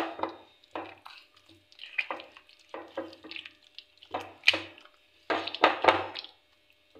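Wet squelching of a hand kneading and rubbing thick yogurt marinade into raw chicken leg pieces in a glass bowl, in irregular short bursts that come thickest between about five and six seconds in.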